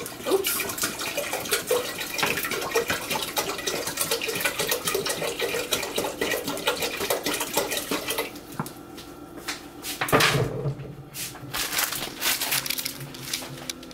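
Water pouring from a plastic gallon jug into a stainless steel pot, a steady splashing that stops about eight seconds in. After it come scattered knocks and handling noise, with a louder bump about ten seconds in.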